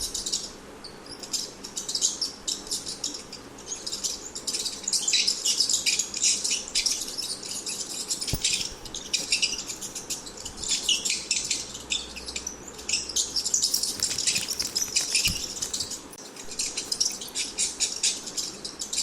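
Rats squeaking: rapid high-pitched squeaks and chirps in dense runs, with brief lulls about a second in and again near the end.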